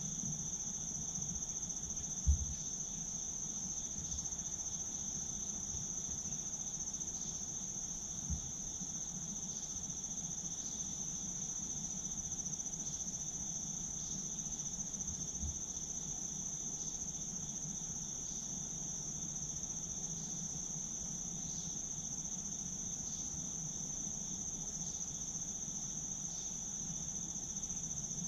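Steady, high-pitched insect chorus. One layer pulses roughly once a second over a continuous shrill drone. A soft low thump comes about two seconds in, and a fainter one around eight seconds.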